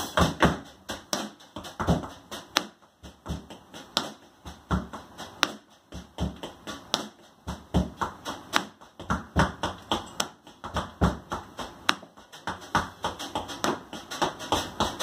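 Tap shoes striking a portable tap board in an unaccompanied solo: sharp taps in an irregular, syncopated rhythm with quick flurries and brief pauses.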